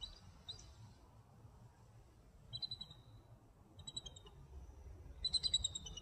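Eagles calling: three short bouts of rapid, high-pitched repeated notes, the last and loudest near the end.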